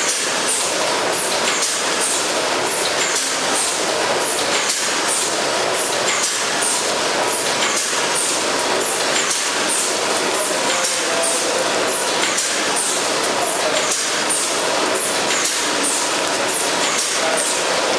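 Packing-line machinery running steadily: conveyors and packing machines, with a short high hiss repeating a bit faster than once a second as the line cycles.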